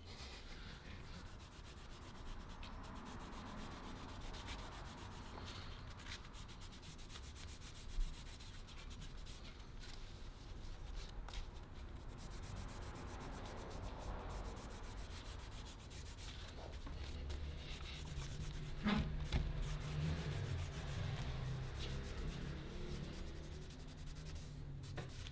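Cloth rubbing oil and wax into the restored cleaver's wooden handle: continuous hand-rubbing strokes, with a single light knock about a third of the way through.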